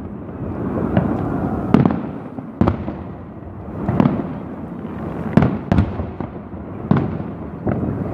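Aerial fireworks salute: shells bursting with sharp bangs, about seven at irregular intervals of roughly a second, each trailing off into a rolling rumble and echo.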